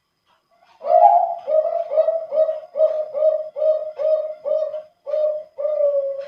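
Male zebra dove (perkutut) of the Bangkok contest strain cooing one song phrase, starting about a second in: an opening coo, then a run of short, evenly spaced coos about two a second, ending on a longer drawn-out coo.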